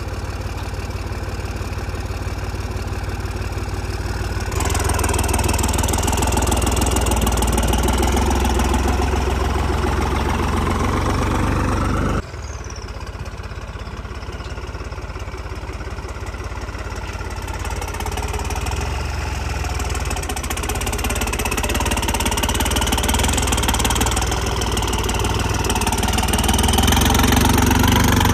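New Holland tractor's diesel engine running under way, its speed stepping up about four seconds in, dropping abruptly around twelve seconds, then climbing again toward the end.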